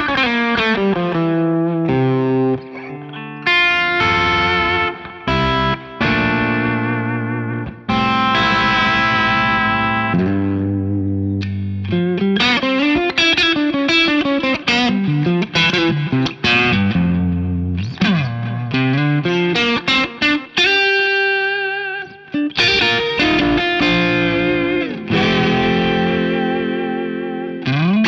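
James Tyler Studio Elite HD electric guitar played in phrases of sustained notes and chords. The notes waver with vibrato, and some bend or glide in pitch, with brief pauses between phrases.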